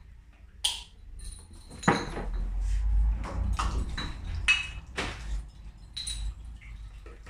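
Beer-bottling gear being handled: a string of sharp clinks and knocks of hard pieces against each other, some with a brief ring, the loudest about two seconds in, over a low handling rumble.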